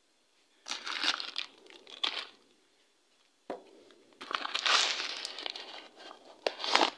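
Foil bleaching-powder sachet crinkling as it is handled and opened, in two spells of rustling, the second longer.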